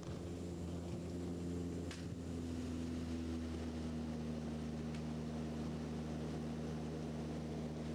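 Turboprop engine and propeller drone heard from inside the airliner cabin, a steady hum of several held tones over rushing noise, its pitch shifting slightly about two seconds in.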